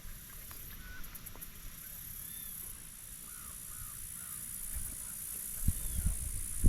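Quiet marsh ambience: a few faint, short distant bird calls, over a steady high hiss. From about five seconds in, low rumbling of wind or handling on the microphone grows, with a sharp thump near the end.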